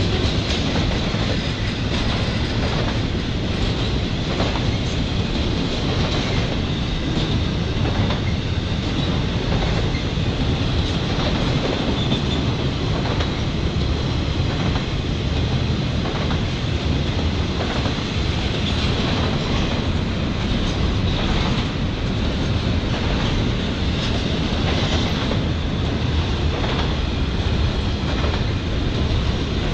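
CSX intermodal freight train's container and trailer cars rolling past, a steady rumble of steel wheels on rail with a regular clickety-clack.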